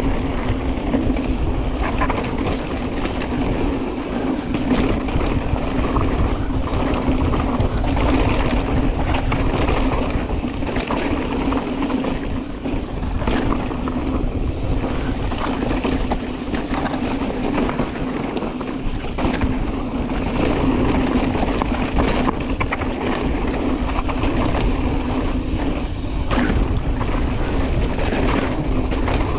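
Hardtail mountain bike ridden fast down dirt singletrack: wind rushing over the microphone and tyres rolling on dirt, with a steady low hum and frequent short rattles and knocks from the bike over rough ground.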